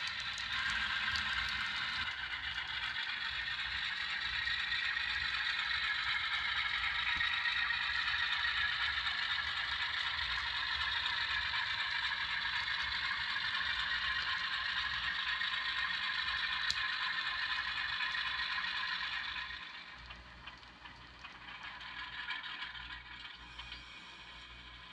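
HO scale model freight train pulled by an Atlas ALCO diesel running on the track: a steady mechanical rattle and clatter of small wheels, motor and gears. It gets much quieter about twenty seconds in.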